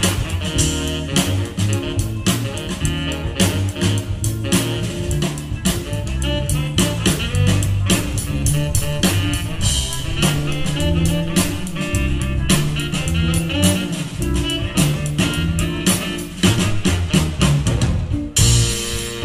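Live instrumental jazz-funk band playing: electric guitar, electric bass, keyboards and drum kit in a steady groove, with a cymbal wash near the end.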